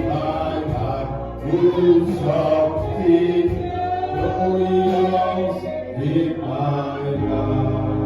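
Church worship singing: a group of voices singing together over sustained keyboard or bass notes.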